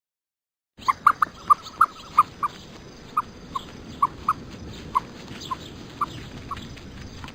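A dog yipping: a quick run of short, high-pitched yips, about two a second and coming less often towards the end, over a steady background hiss.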